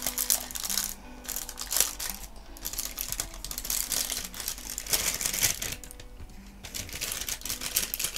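Clear plastic bag crinkling and rustling in the hands as a roll of washi tape is worked out of it, in irregular bursts.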